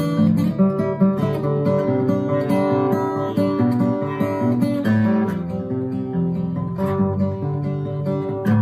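Acoustic guitar music, with chords strummed in a steady, continuous rhythm.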